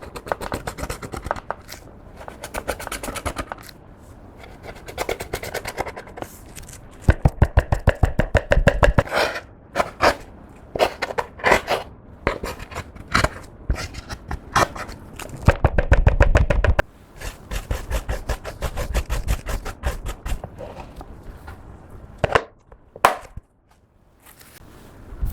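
Clear slime being squished, folded and stretched by hand, making sticky clicks and pops that come in quick runs, thickest in two stretches partway through.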